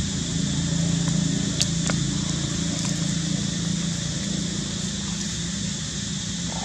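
Steady low rumble of outdoor background noise, with a steady high drone above it and a few faint clicks about two seconds in.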